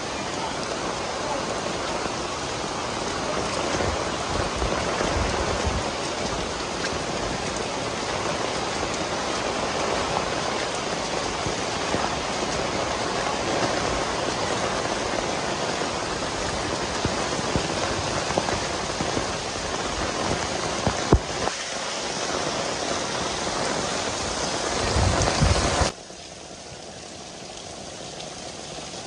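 Heavy rain pouring steadily onto the ground, leaves and roofs, a dense hiss of falling water, with one sharp tap about two-thirds of the way through. Near the end the sound drops suddenly to a softer, thinner rain.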